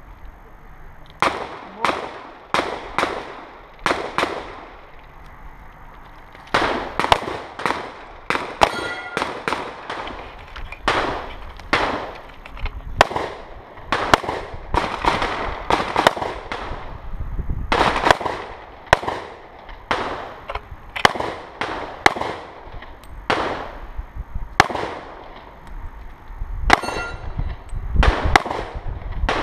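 Handgun shots fired in quick strings at a competition stage, with a short pause a few seconds in. A short ringing tone sounds twice among the shots.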